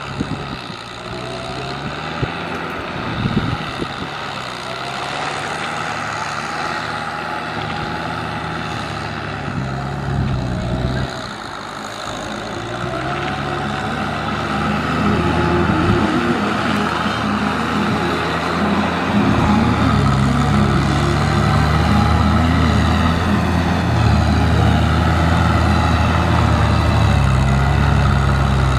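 Kubota M6040SU tractor's diesel engine working under load as it pulls an implement through deep paddy mud. The engine note rises and falls, and it grows louder about two-thirds of the way through as the tractor comes closer.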